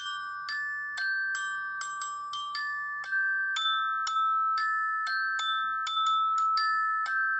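Background music: a gentle melody of struck, bell-like mallet notes, about two to three a second, each ringing on under the next.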